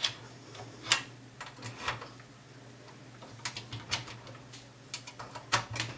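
Scattered clicks and light knocks as RCA plugs and a SCART adapter are pushed into and worked in the jacks on the back of a metal-cased satellite receiver.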